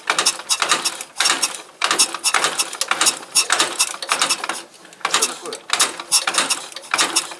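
Metal clicking in quick bursts, about one burst a second, from hand work on a disassembled tractor gearbox.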